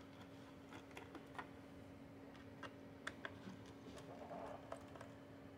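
Faint, irregular small clicks of a T5 precision screwdriver working the bottom-plate screws out of a Razer Blade laptop, over a steady low hum.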